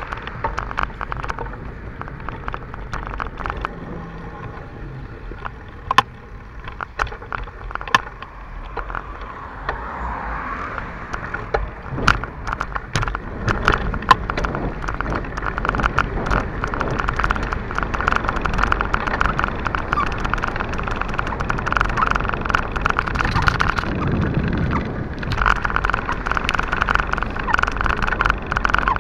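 Bicycle ride heard from an action camera carried along: steady rolling and wind noise with continual rattling clicks. Several sharp cracks stand out, about 6, 8, 12 and 14 seconds in.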